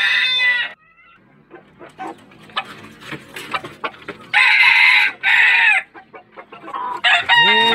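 Gamecock roosters crowing: one crow ends under a second in, another crow in two parts comes midway, and a third begins near the end. Short clicks and soft clucks in between.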